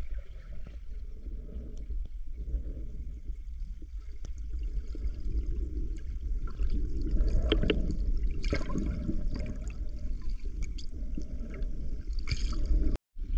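Moving water heard through a submerged camera: a muffled, constant low rumble with gurgling and scattered small clicks, growing somewhat louder about halfway through.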